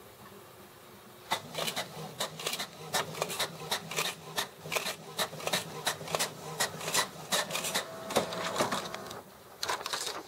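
HP Officejet R80 inkjet all-in-one running a copy job: a fast, even clicking of its feed and carriage mechanism, about five clicks a second, over a steady motor hum. It starts about a second in and pauses briefly near the end.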